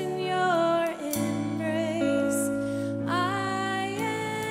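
Slow worship music: a sung melody over held chords.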